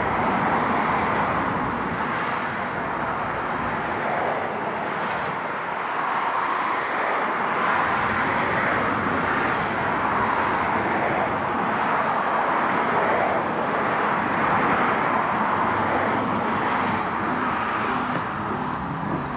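Road traffic on a bridge: a steady rushing of passing cars' tyres that swells and eases without a break.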